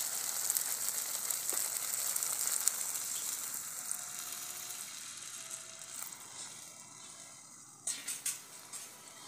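Water poured into a hot kadhai of fried masala, hissing and sizzling loudly at first, then dying away over several seconds as the water takes the heat. A few short knocks near the end.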